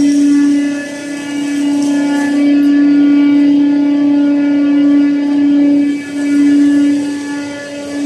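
Hydraulic power unit of a scrap-metal baler running: a steady whine on one constant pitch with overtones, its loudness rising and falling.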